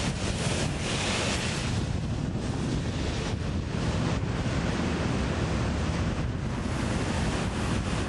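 Storm wind blowing on the microphone: a steady low rumble under a rushing hiss, the hiss strongest about a second in before it eases.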